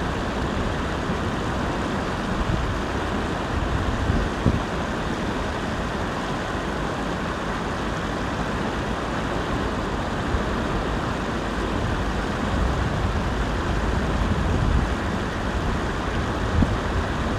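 Steady rushing outdoor noise of wind on the microphone, with uneven low rumbling gusts.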